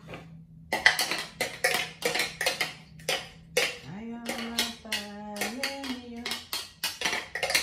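Kitchen clatter: utensils and dishes knocking and clinking in quick succession.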